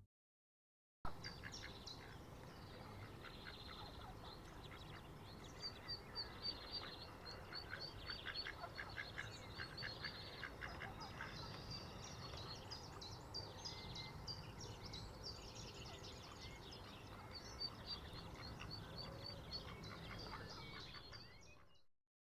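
Faint birdsong: a small bird repeats a high chirp in quick, even runs, with other birds calling and ducks quacking.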